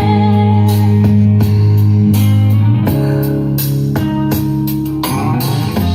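Pop song music with guitar and a steady drum beat in an instrumental passage between sung lines, played back through a small portable Bluetooth speaker.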